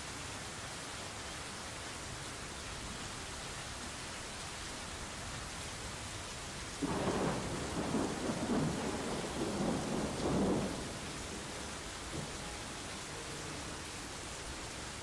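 Steady rain hiss, with a roll of thunder starting about seven seconds in and lasting some four seconds before it fades back into the rain.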